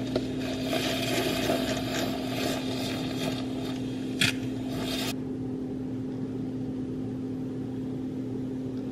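Handheld electric milk frother whirring in a glass jar of oat milk and heavy cream, with a steady hum under it. The churning noise stops about five seconds in, with a brief tap just before, while the hum carries on.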